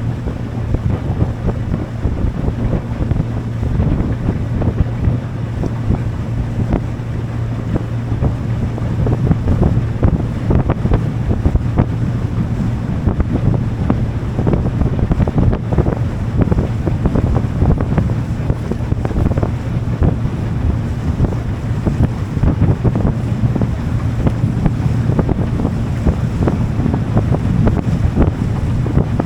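A motorboat's engine running at a steady speed, a low hum, under heavy wind buffeting the microphone, with water rushing past the hull.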